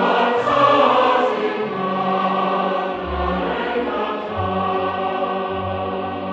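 Background music: a choir singing slow, long-held notes over a shifting bass line.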